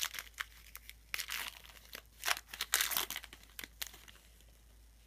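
Trading-card pack wrapper being torn open and crinkled by hand, in dense bursts of crinkling that stop about four seconds in.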